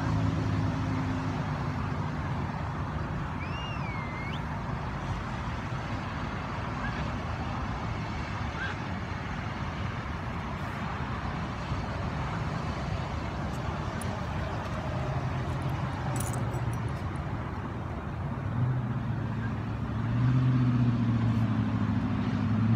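Steady motor-vehicle engine and road noise, with the engine note rising somewhat near the end, and a brief high wavering squeak about four seconds in.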